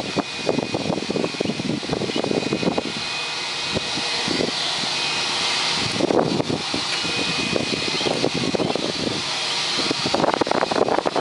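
A parked Airbus A320 running, a steady high whine over a rushing hiss, with gusts of wind buffeting the microphone, strongest near the start and the end.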